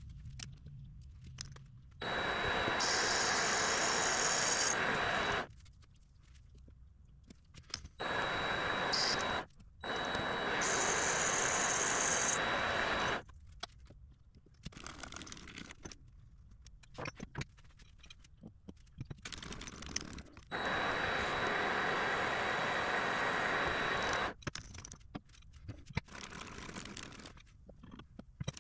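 Vevor MX400 mini lathe running in several spells of a few seconds, each with a steady high whine from the machine over a hiss of the cut, while a part is turned to size; quieter stretches with small scrapes and clicks between the spells.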